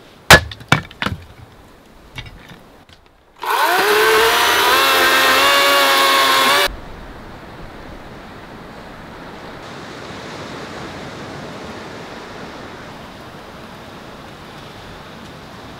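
A few sharp knocks, then a cordless battery chainsaw running for about three seconds, its whine rising as it spins up and then holding steady; after it cuts off, a steady even rushing noise runs on.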